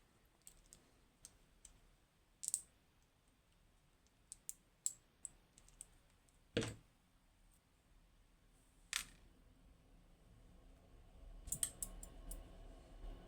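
Small metal clicks and taps of Goal Grand V lock pins and parts being handled and set down on a tray while the lock is taken apart. The clicks are scattered and irregular, a few of them sharper, with a quick run of clicks near the end.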